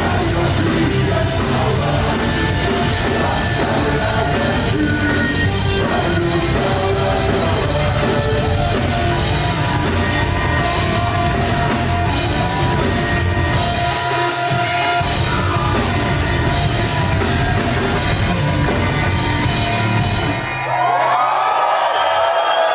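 Live rock band with a lead singer, amplified and loud, finishing a song: the music cuts off about twenty seconds in. A crowd cheers and yells right after.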